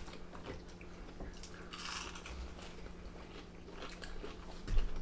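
People chewing and biting into fast food, with faint crunches and small clicks. A short low thump comes near the end.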